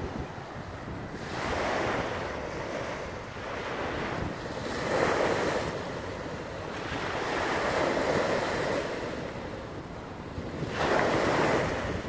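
Small wind-driven waves breaking and washing up a sandy river beach, surging in about four times, over wind buffeting the microphone.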